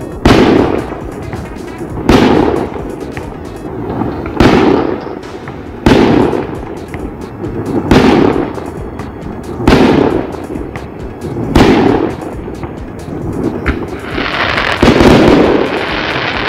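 Fireworks shells bursting one after another, a sharp bang with an echoing tail about every two seconds, seven in all. Near the end comes a longer, broader swell of noise.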